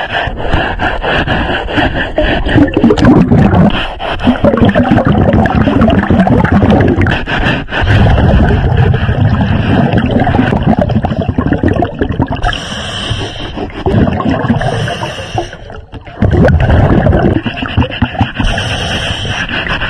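Scuba diver breathing through a regulator underwater: hissy inhalations alternate with loud, rumbling, gurgling bursts of exhaled bubbles, a few seconds apart.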